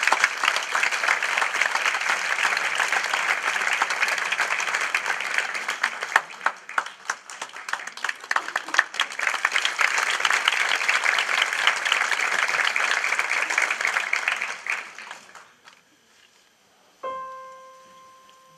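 Audience applauding for about fifteen seconds, then fading out. About two seconds later, a single note struck on an electric stage piano rings and dies away.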